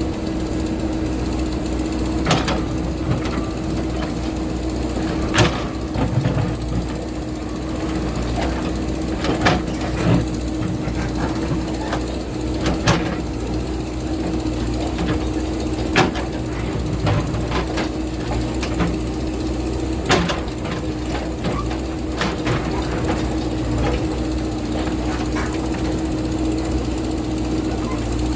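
JCB backhoe loader's diesel engine running steadily under work. Several sharp knocks and clatters break through it at irregular moments as the bucket strikes and scrapes rock.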